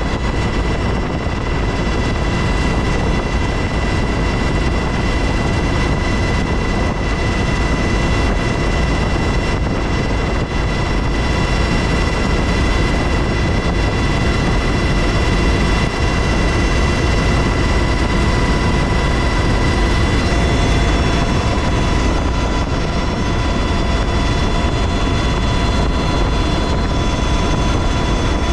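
UH-60 Black Hawk helicopter in flight, heard from inside the open-door cabin: a loud, steady din of its twin turboshaft engines, rotors and rushing air, with a constant high whine over it.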